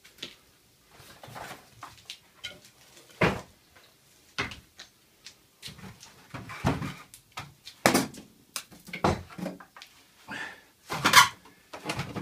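Irregular wooden knocks and clunks as pallet-wood boards are handled and fitted into a bench frame, with several louder bangs among them.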